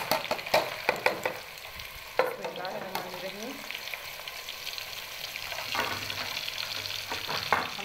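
Chopped onions dropped into hot oil in a steel pot and sizzling, with a few sharp clatters of the ladle and plate in the first second or so, then a steady frying hiss and crackle as they are stirred.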